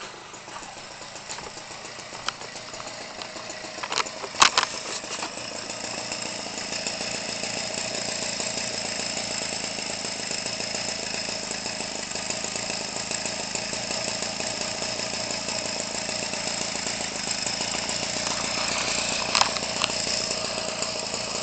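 A 25cc two-stroke string-trimmer engine, converted for RC aircraft use and fitted with its stock muffler, running at a steady speed without revving. It grows louder over the first few seconds. Two sharp clicks come through, about four seconds in and near the end.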